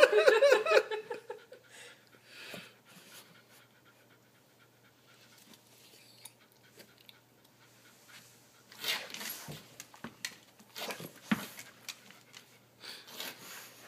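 Old Rottweiler sniffing at a laser pointer dot on the rug, its nose pressed to the floor, breathing in short noisy bursts. The bursts come mostly in the second half.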